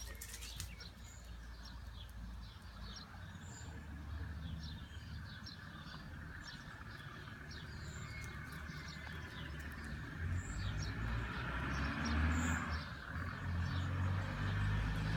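Small songbirds chirping, many short falling chirps scattered throughout, over a low rumble that grows louder in the second half.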